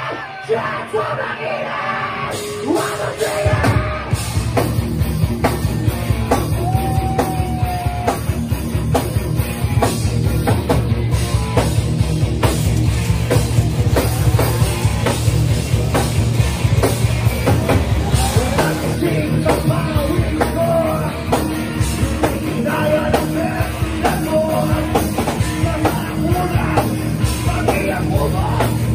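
Rock music with singing, laid over as the soundtrack; the full band with its heavy bass comes in about four seconds in and keeps a steady driving beat.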